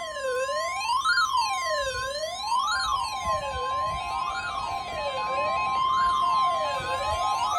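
NOAA Weather Radio 1050 Hz warning alarm tone held steady, with a weather radio's siren-style alarm wailing up and down about every second and a half over it. Near the end the steady tone stops and a beeping alarm joins the wail.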